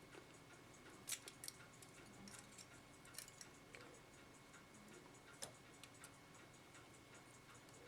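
Faint, sparse clicks of small metal clock-movement parts, wheels and plate, being handled and set down during disassembly, over near silence.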